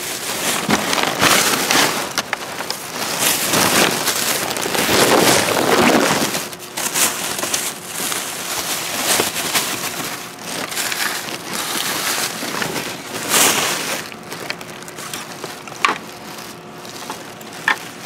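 Plastic bags and packaging rustling and crinkling as they are handled and pulled open by hand, an irregular crackling rustle with short sharp crackles throughout.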